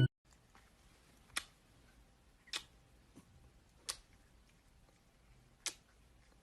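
Quiet room tone broken by about five faint, sharp clicks at irregular intervals.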